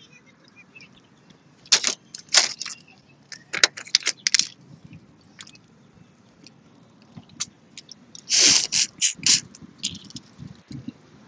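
Close-up eating sounds of boiled crawfish: shells cracking and snapping as they are twisted apart, and wet sucking slurps at the mouth. These come in short bursts, with a longer cluster near the end.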